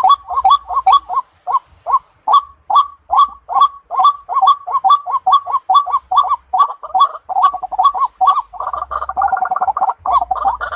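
White-breasted waterhen calling: a rapid series of short, harsh, repeated notes, about three or four a second, that crowd together into a denser chorus near the end.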